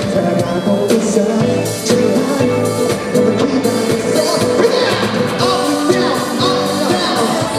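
Live pop music with singing, played loud over a concert sound system.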